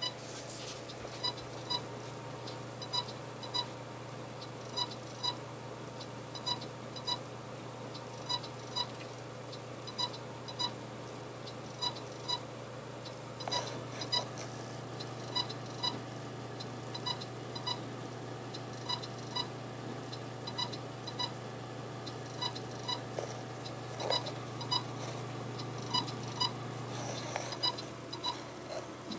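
Desktop computer tower giving short, high beeps over and over at a regular pace, with a steady low hum underneath and a couple of brief knocks.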